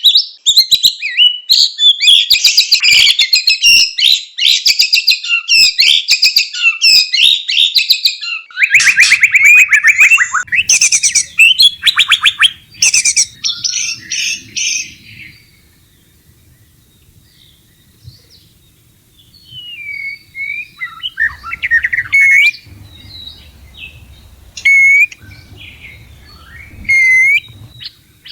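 White-rumped shama in breeding condition singing: a long stretch of loud, rapid, dense chattering song, then after a short pause scattered whistled notes and calls.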